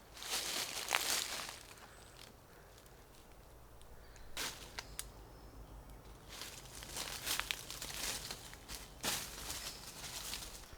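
Rustling and crackling of dry leaves and twigs in bouts, with sharp snaps: once about a second in, briefly near four and a half seconds, and again for about four seconds in the second half.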